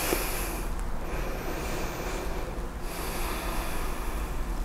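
A woman breathing slowly and audibly through a held yoga pose, over a steady faint hiss.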